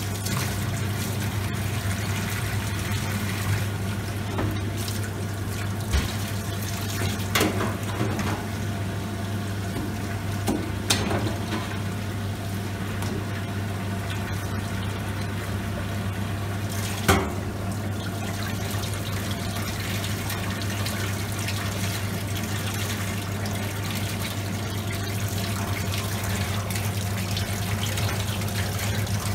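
Kitchen tap running into a stainless steel sink, the water splashing over a lobster being rinsed under it, over a steady low hum. A few brief knocks stand out, the sharpest about two-thirds of the way through.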